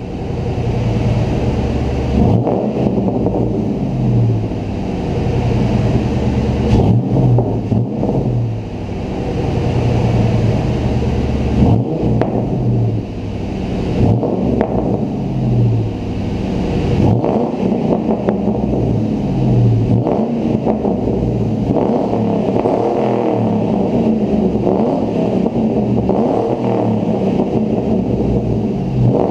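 2001 Ford Mustang GT's 4.6-litre two-valve V8 through an SLP Loudmouth II cat-back exhaust, running loud and revving. The engine pitch climbs and falls again and again, with short breaks in the sound around 2, 7, 12 and 17 seconds in.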